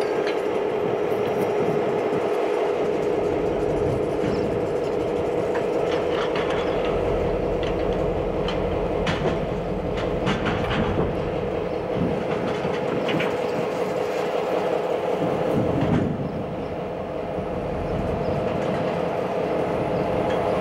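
Freight gondola cars of a slow-moving work train rolling past on the rails, a steady hum with clatter from the wheels and couplers. Several sharp clanks and knocks sound through the middle.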